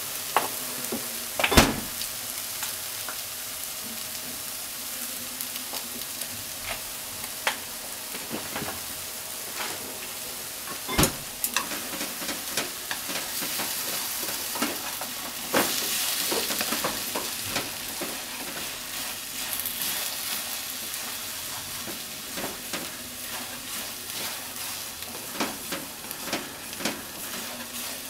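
Shiitake, enoki and negi stir-frying in a hot frying pan: a steady sizzle, broken by sharp knocks of the stirring utensil against the pan, the loudest about one and a half seconds in and again about eleven seconds in.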